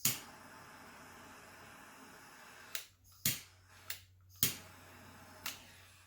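Handheld torch hissing steadily as it plays over the resin, with a sharp click as it comes on and several more sharp clicks about three to five and a half seconds in.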